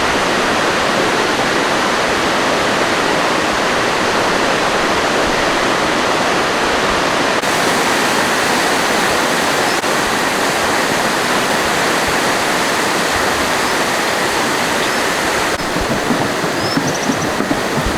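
Loud, steady rush of fast-flowing water, like a torrent or waterfall. A little after fifteen seconds it turns rougher and more uneven.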